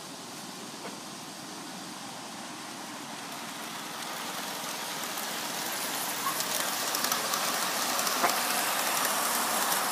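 G-scale model train running along outdoor track: a steady rolling rattle that grows louder as it approaches and passes close, with faint clicks in the second half.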